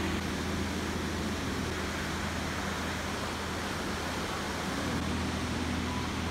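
Steady rush of wind and the cruise ship's churning wake, with a low, steady hum from the ship's engines underneath.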